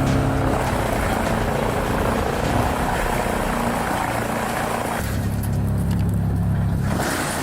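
Claas Xerion 5000 tractor driving a TP400 wood chipper, running under load with a dense, noisy chipping sound. About five seconds in the sound changes to a steadier deep engine note with less hiss.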